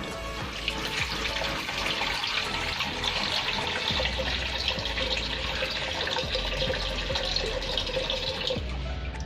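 Water running from a faucet in a steady rush that stops near the end.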